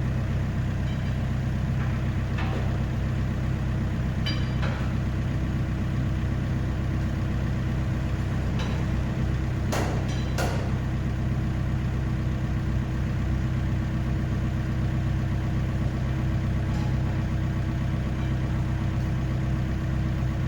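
Komatsu PC50 mini excavator's diesel engine idling steadily, with a few metallic clinks and two sharp knocks about ten seconds in.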